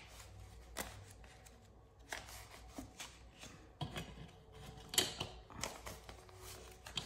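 Paper banknotes being handled and counted by hand: soft, scattered rustles and flicks of the bills.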